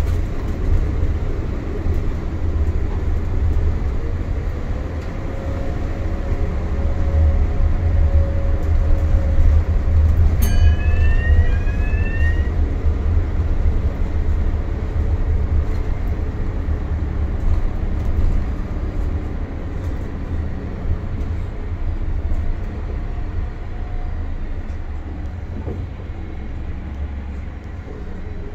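Wright StreetLite single-deck bus heard from inside the passenger saloon: a steady low engine and drivetrain rumble that swells and rises in pitch in the first half, then eases off again. About ten seconds in there is a click, then two short rising chirps.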